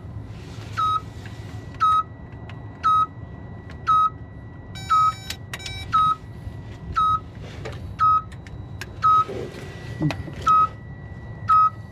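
A Freightliner Cascadia's warning alarm beeping steadily, about once a second, with a brief different chime about halfway through.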